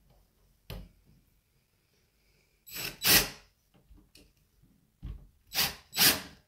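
Newly installed door knob and latch being worked: a short click, then loud metallic clunks and rattles in two groups as the hardware is turned and the door is moved.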